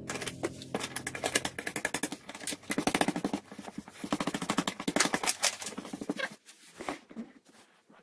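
Stiff brush scrubbing wood stain onto small wooden lattice bars in quick back-and-forth strokes, the bristles scraping against the wood. The strokes stop about six seconds in, leaving a few faint ticks.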